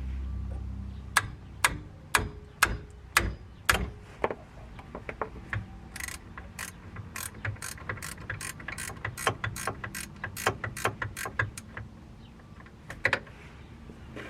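Hand ratchet clicking while working out the bolts that hold a rear hub assembly. First come single clicks about every half second, then a quicker run of clicks, then one last pair near the end.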